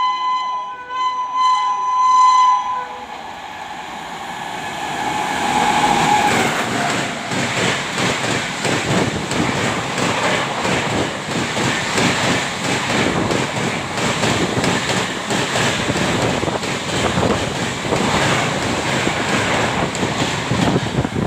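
A WAP-7 electric locomotive's horn gives a shrill honk for about the first three seconds. Then the Rajdhani Express passes at high speed: a loud, steady rush of wheels and air with a rapid clatter of wheels over rail joints, lasting the rest of the time.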